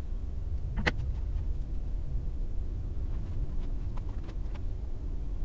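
Steady low rumble, with a sharp click about a second in and a few faint ticks later.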